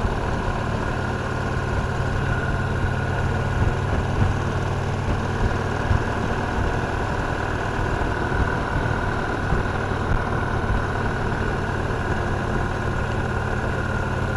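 Victory Cross Roads Classic LE's 1700 cc V-twin engine running steadily at an even pitch.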